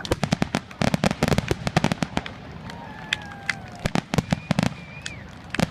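Fireworks finale: shells bursting in rapid, irregular succession, sharp bangs and crackles coming thick and fast, with a denser cluster near the start and another around the middle.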